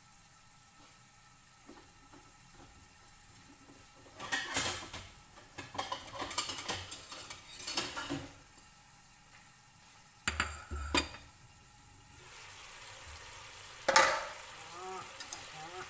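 Clattering and clinking of cookware and utensils, then a steady sizzle of chicken wings frying in a fish-sauce glaze in an uncovered nonstick wok. A sharp metal clank with a short ring comes about two seconds before the end.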